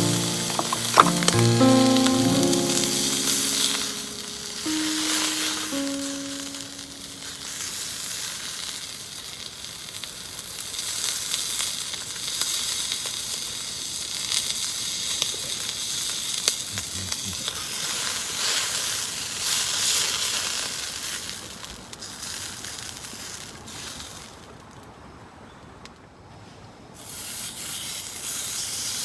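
Food sizzling and frying in a pan, a steady hissing that drops away for a few seconds near the end before picking up again.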